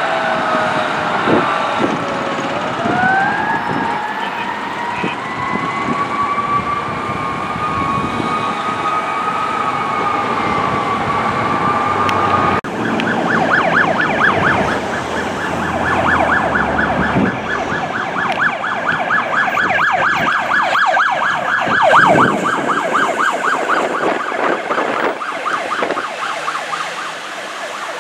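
Emergency-vehicle sirens on responding fire apparatus. First a slow wail, its pitch falling and then climbing and holding high; after a sudden cut about halfway through, an electronic siren on a rapid yelp.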